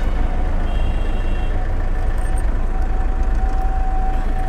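Toyota Innova engine idling steadily, a constant low rumble.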